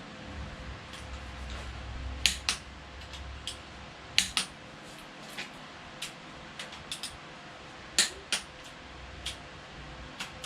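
Pittsburgh click-type torque wrench set to 51 foot-pounds breaking over on engine connecting-rod bolts: three sharp double clicks (click-clack), with lighter metallic ticks between them.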